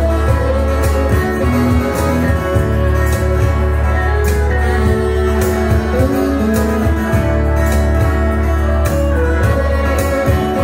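Live band playing an instrumental passage with no vocals: electric guitar, acoustic guitar and fiddle over a steady percussion beat from a cajon.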